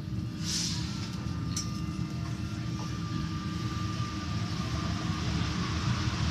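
Cabin of an Alstom NS-93 rubber-tyred metro train pulling away from a station: steady low rumble of the running gear and traction motors, with a faint tone, growing slightly louder as it gathers speed. A short hiss comes about half a second in and a click a second later.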